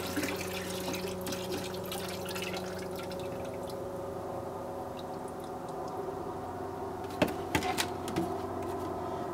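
Antifreeze and distilled water pouring from a plastic jug into a plastic bucket, mixed 50-50 as engine coolant. The pour tails off a few seconds in, and a few sharp knocks come near the end as the jugs are handled.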